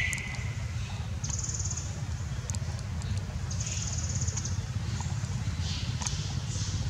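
Outdoor ambience: a steady low rumble with two short, high-pitched buzzing trills, about a second each, and a few faint clicks.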